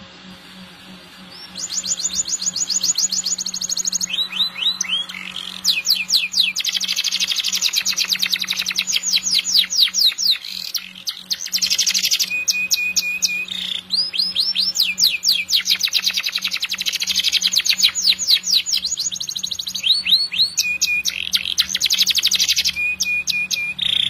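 Domestic canary singing a long, continuous song of rapid rolling trills and quick repeated notes, with a few short breaks. The song starts about a second and a half in, over a faint steady low hum.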